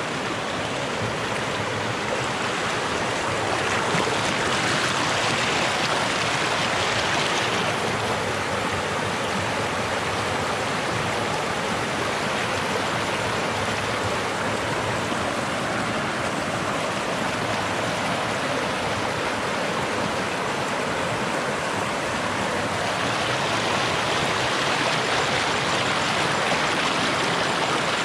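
Shallow mountain stream running and splashing over rocks: a steady rush of water that grows brighter about four seconds in and again near the end.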